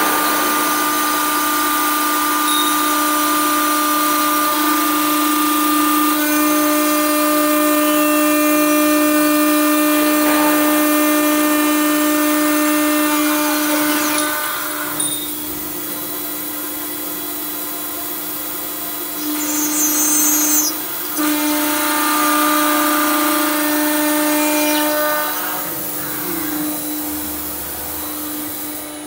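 Italian 9 kW spindle of a four-axis aluminium-profile CNC machining centre milling slots and holes in 5 mm aluminium extrusion: a steady whine with the hiss of cutting. It drops in level about halfway through, with a few brief louder bursts a little later, and eases again near the end.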